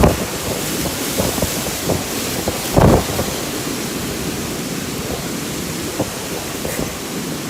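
Strong wind blowing with a steady rushing noise, gusts buffeting the microphone in short low thumps, the loudest about three seconds in.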